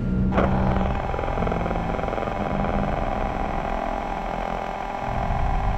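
Dense droning noise soundscape: a loud, steady hum of many held tones, with low notes that change every second or so. It starts with a sudden jump in loudness and a short strike just at the start.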